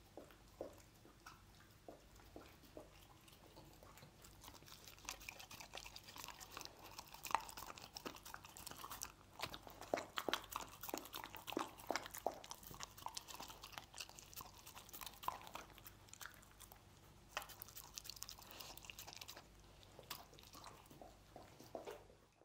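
A dog eating small pieces of stir-fried meat off a wooden cutting board: close-up biting and chewing in quick, irregular crunches. It starts sparse and becomes dense from about four seconds in, eases off for a while in the middle, picks up again, and thins out near the end.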